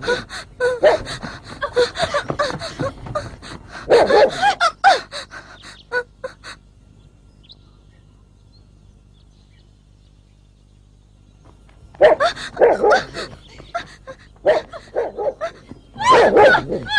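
Dog barking in quick bursts, stopping for about five seconds midway and then starting again.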